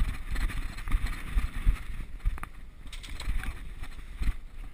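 Running footsteps on a dirt forest floor, with irregular thumps and rumble from gear jostling the body-worn camera and wind on its microphone.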